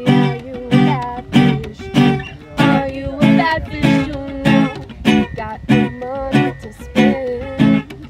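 Acoustic guitar strummed in a steady rhythm, a strum a little more than every half second, with a woman singing along.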